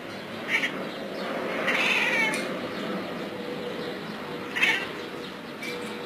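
Domestic cat giving short meow-like calls while watching birds through a window: a brief call about half a second in, a longer wavering one about two seconds in, and another brief, sharper one a little before the end.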